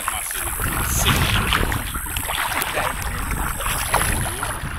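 Wind rumbling on the microphone out on open water, with small splashes and knocks of water against a plastic kayak hull.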